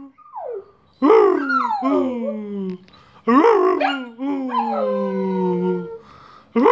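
Small dog howling: a run of drawn-out howls, each starting high and sliding down in pitch, the last held about a second and a half.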